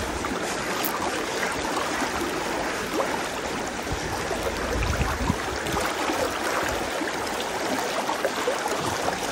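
Fast-flowing river current rushing steadily, an even wash of water noise.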